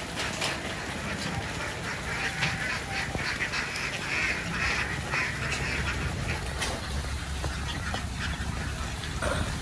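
A flock of ducks quacking together, a dense overlapping clatter of calls that is thickest in the middle, over a steady low rumble.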